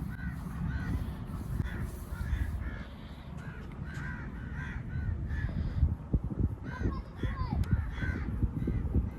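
Birds calling over and over in short repeated calls, over low thumps and rubbing from a vigorous hand massage on the back, with a run of sharper slaps about six to nine seconds in.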